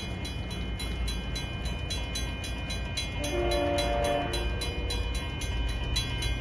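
A train horn sounds one chord of several notes for about a second, midway through, over a steady low rumble.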